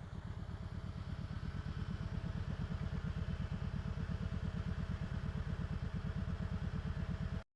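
Kawasaki Voyager 1700's V-twin engine idling with a fast, even low pulsing. It grows a little louder and cuts off abruptly near the end.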